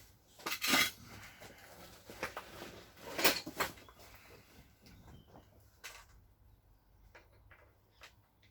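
Metal clinks and knocks from engine parts and tools being handled and shifted, an irregular scatter of sharp strikes with the loudest about three seconds in.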